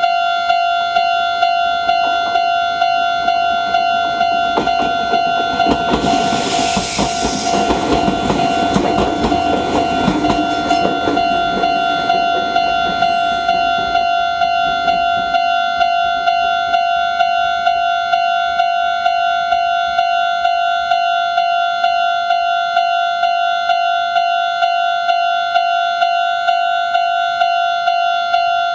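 Japanese level-crossing alarm ringing steadily in a regular repeating ding. Meanwhile a Meitetsu 6800 series train passes over the crossing, its wheels clacking over the rail joints. The train is loudest about six to ten seconds in and has faded by about fifteen seconds, while the alarm keeps ringing.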